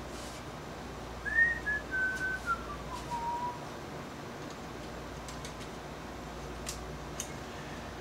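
A person whistling a short tune for about two seconds, falling in pitch by steps. A couple of light clicks follow as the metal case cover is handled.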